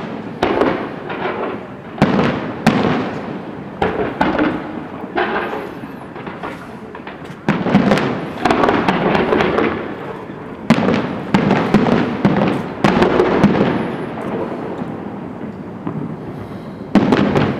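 Aerial fireworks shells bursting in quick succession, each sharp bang trailing off into an echoing rumble. The heaviest volleys come about midway, a short lull follows, and a last loud burst comes near the end.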